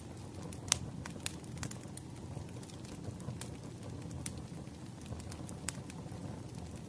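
Wood fire crackling: a steady low rumble of burning logs with irregular sharp pops and snaps, the loudest a little under a second in.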